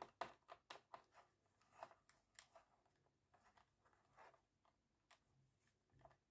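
Faint clicks and light scrapes of a small screwdriver turning screws in a laptop's plastic bottom cover, with hands handling the case. A quick run of clicks comes in the first second, then sparser ones.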